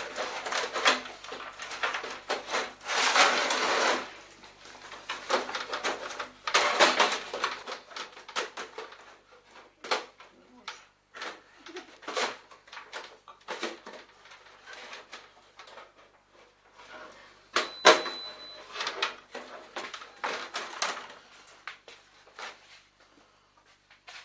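Sheet-metal computer case and cut panels being handled and shifted on a workbench: irregular scraping, rattling and knocking, busiest in the first few seconds, with one sharp metallic clank about eighteen seconds in.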